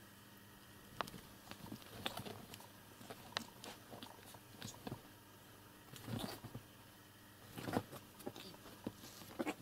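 A kitten and an older cat play-fighting on a quilted bed: faint scuffling and rustling of the bedcover with scattered soft taps and clicks, in louder bursts about six and nearly eight seconds in.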